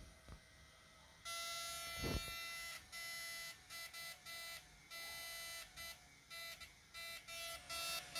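Homemade mosfet inverter with a hand-wound transformer, loaded with a pair of 1000 W halogen tubes, giving a high-pitched buzz that starts about a second in and then comes in repeated on-off pulses. A single low thump about two seconds in.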